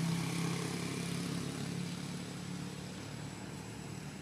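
A motor engine humming steadily and fading away over the first three seconds or so, leaving a faint steady background.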